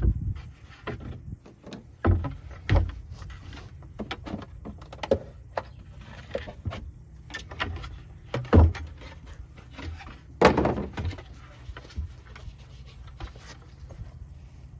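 Irregular knocks, thuds and rustling from hands handling things, with two louder thuds about eight and a half and ten and a half seconds in.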